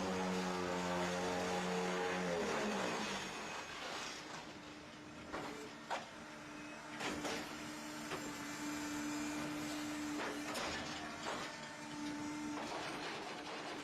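Concrete-block press machine at work: a motor hum that winds down about three seconds in, then another steady hum with scattered metal knocks and clanks, the sharpest about six seconds in.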